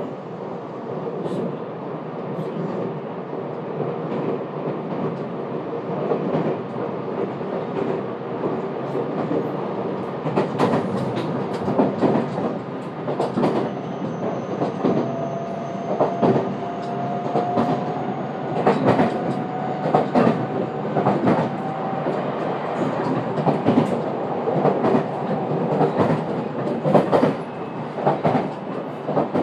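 Running noise heard inside the passenger car of a JR West 227 series electric train: a steady rumble with wheels clacking over rail joints. The clacks come more often from about ten seconds in, and a faint, slowly rising whine sounds in the middle.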